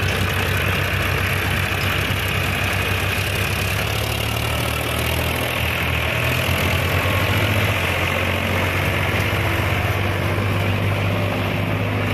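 Diesel tractor engines, a Powertrac 439 among them, running with a steady low hum as two tractors pull away with trailers loaded with crushed stone.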